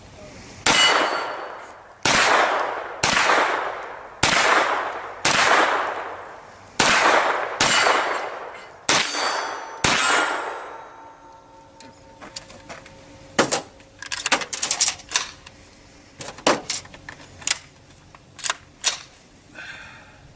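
Kel-Tec Sub-2000 9mm carbine fired about nine times in steady succession, roughly one shot a second, each report ringing out behind it. Lighter clicks and clinks follow in the second half of the clip.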